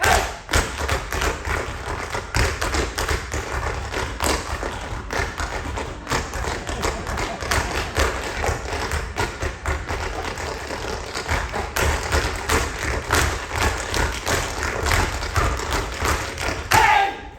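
Tap shoes and stomping feet striking a stage floor in a fast, dense percussion routine, with heavy thuds under the sharper taps. It breaks off shortly before the end.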